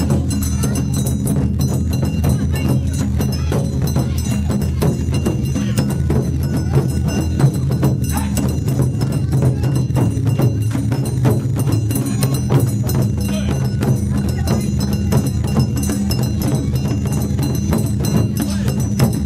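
Festival troupe beating large barrel-shaped taiko drums in a fast, driving rhythm, with no break.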